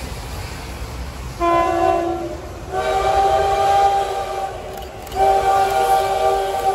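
Approaching locomotive sounding a multi-note chime horn in three blasts: a shorter one, then two longer ones, each several tones held together.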